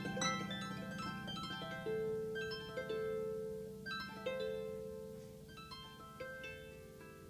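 Harp played slowly and softly: single plucked notes and broken chords, each left to ring, growing quieter toward the end.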